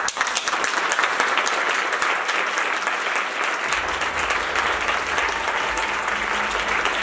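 Theatre audience applauding, a dense steady clapping from many hands.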